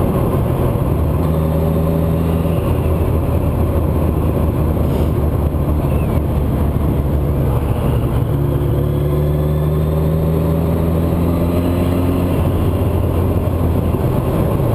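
Suzuki Bandit 1200S inline-four engine running under way, with wind rushing over the microphone. The engine's pitch rises slowly twice as the bike accelerates, briefly about a second in and again for a few seconds past the middle.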